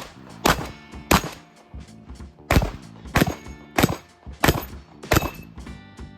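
Shotgun fired seven times in quick succession, about one and a half shots a second, with a pause of about a second and a half after the second shot. Background music plays underneath.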